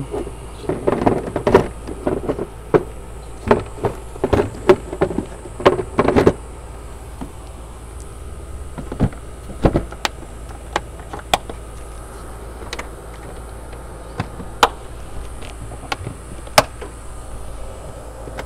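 Toyota Tundra's plastic air-filter housing being closed over a fresh paper filter: a quick run of plastic knocks and rattles for about six seconds as the lid is seated, then scattered sharp single clicks as the spring clips are snapped shut.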